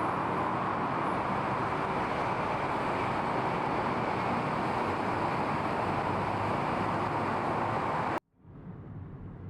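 Steady traffic or road noise with no distinct events. It cuts off suddenly near the end, leaving a much quieter background.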